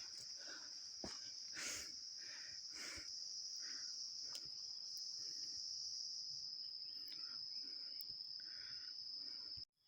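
Forest insects keeping up a steady, high-pitched drone, with soft footsteps on a trail underneath at a walking pace. The sound breaks off for a moment near the end.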